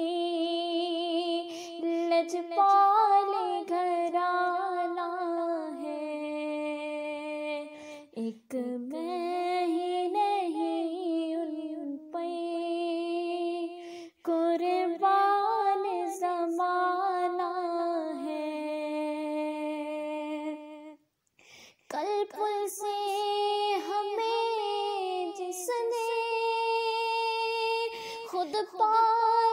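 A female voice singing a naat unaccompanied, in long held, ornamented notes. It pauses briefly for breath a few times.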